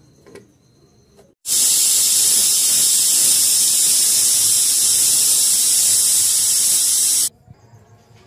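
Pressure cooker on a wood fire venting steam past its weight valve, the sign that it has come up to pressure. A loud steady hiss starts abruptly about a second and a half in and cuts off just before the end.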